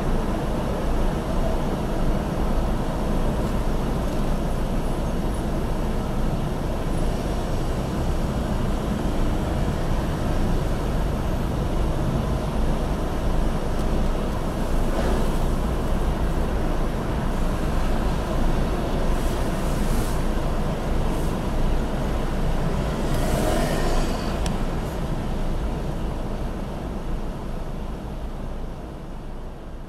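Low steady rumble of a car idling in stationary traffic, heard from inside the car. The traffic noise swells briefly about 23 seconds in, and the sound fades away near the end.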